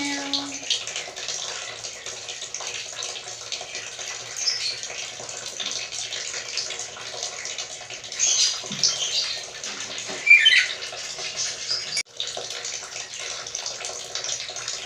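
Black-capped lory giving a few short calls over a steady hiss. The loudest call, about ten seconds in, slides down in pitch.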